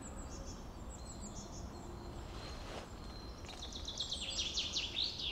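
Songbirds singing: scattered high chirps, then from about three and a half seconds in a quick run of notes stepping down in pitch, over a faint low rumble of background noise.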